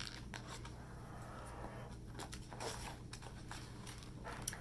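Faint, scattered light taps and brief rustles of paper handling, over a low steady hum.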